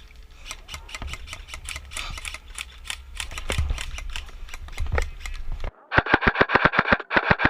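Scattered sharp clicks of airsoft guns firing, over a low rumble. About six seconds in, a nearby airsoft rifle opens up on full auto, about a dozen shots a second, in two bursts with a brief gap.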